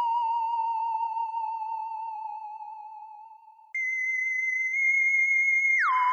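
Electronic theremin-style alien sound effect: a warbling tone that sags and fades out, then jumps back in at about twice the pitch, holds steady, and slides down to the wavering lower tone near the end.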